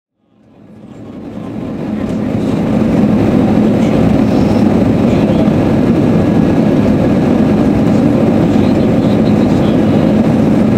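Steady cabin noise of an Airbus A320-214 in flight: an even rumble of engines and airflow, rising from silence over the first two or three seconds and then holding level.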